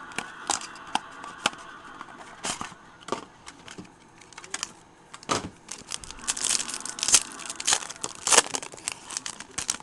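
Foil wrapper of a 2008 Upper Deck SPX baseball card pack being handled and torn open. It makes irregular sharp crinkles and crackles that come thickest in the second half.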